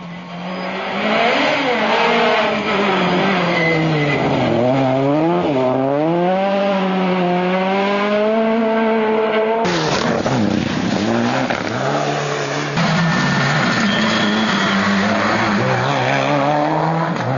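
Rally car engines at full throttle: one engine revs hard, its pitch climbing and dropping again and again with the gear changes and braking. About ten seconds in, after a cut, a second rally car's engine runs at a steadier pitch with a thin high whine over it.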